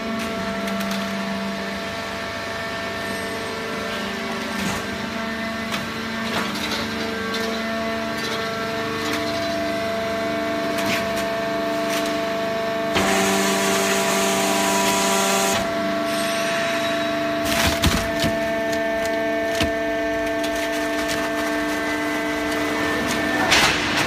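Hydraulic paper baler running: a steady motor and pump hum made of several held tones that shift a little as the machine works, with scattered clicks and knocks. A rushing hiss comes in about halfway through and lasts a couple of seconds.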